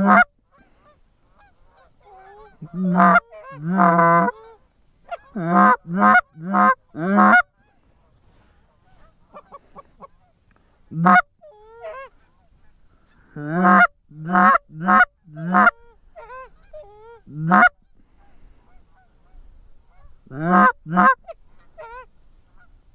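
Geese honking, loud short calls in runs of two to four with pauses between.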